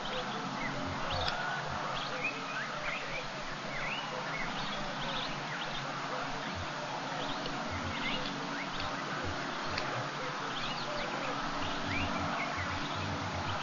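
Many short, high, upward-sliding bird chirps scattered throughout, over a steady background hiss.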